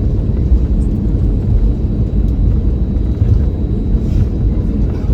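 Steady low rumble of an Airbus A320neo's cabin noise, heard from inside the cabin.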